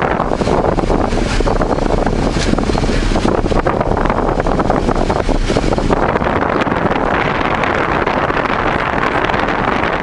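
Heavy tropical downpour: a steady rush of rain with wind rumbling on the microphone. The high hiss thins out about six seconds in.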